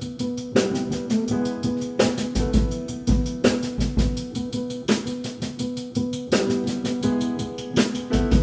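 Jazz piano trio playing: an upright piano strikes chords about every second and a half over a plucked double bass, while a drum kit keeps a fast, even cymbal pattern with bass drum kicks.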